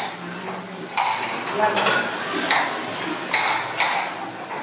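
Several light, sharp knocks and clicks of small wooden pieces and pencils being handled and set down on a wooden table.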